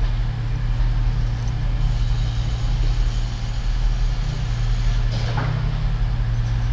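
Diesel multiple unit's underfloor engines running with a steady low drone.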